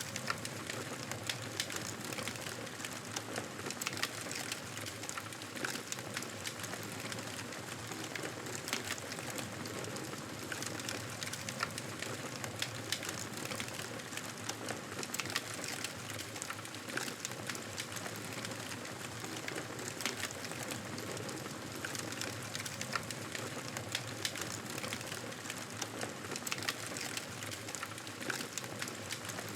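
Wood fire crackling in a fireplace: a steady hiss with frequent sharp pops and crackles.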